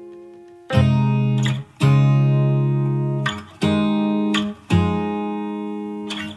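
Background music: a guitar strumming sustained chords, a new chord struck about every second, with no singing.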